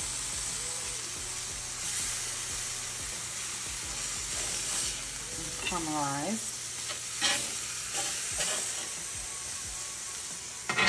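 Sliced bell peppers and onions sizzling steadily on a hot stovetop griddle. A metal spatula scrapes and taps on the griddle a few times in the second half, and there is one brief pitched sound that dips and rises about six seconds in.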